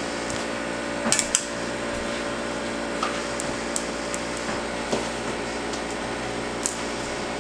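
Light knocks and clicks of kittens playing with a feather wand toy around wooden chair and table legs, a quick cluster about a second in and a few single taps later, over a steady hum.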